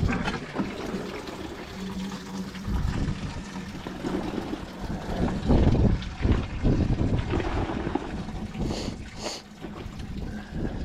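Gusty wind buffeting the microphone on an open fishing boat, with water sounds around the hull and a faint steady hum. Two short, sharp sounds come about nine seconds in.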